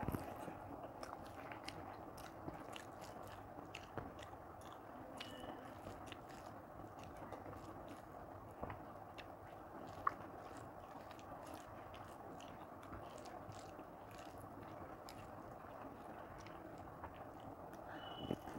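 Faint, close chewing of a mouthful of soft rice mashed with bitter gourd and potato, eaten by hand, with small wet mouth clicks and smacks. A slightly louder click comes about ten seconds in, around when her fingers mix more rice on the plate.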